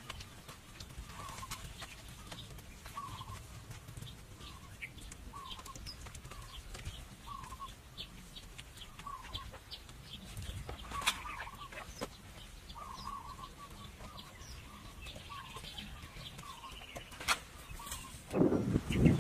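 Chickens clucking, short calls about once or twice a second over a low steady background, with a few sharp clicks. A loud rush of noise, like wind on the microphone, comes in near the end.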